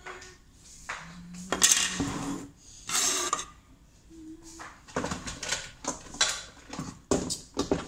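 Kitchenware being handled on a counter: plastic jugs, lids and dishes clattering and knocking in several separate bursts.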